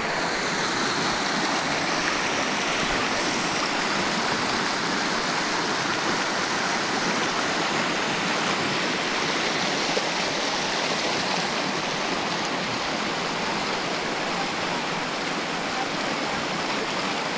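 Steady rushing noise with almost no bass, even in level throughout.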